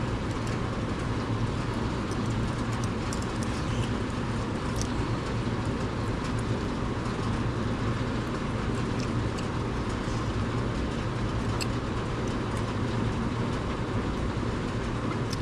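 Bench sander motor running steadily while a small steel knife part is ground on it, with a low hum and a few faint ticks.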